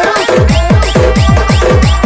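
Loud electronic DJ remix music with a heavy kick drum hitting about four times a second and a repeating synth figure over it.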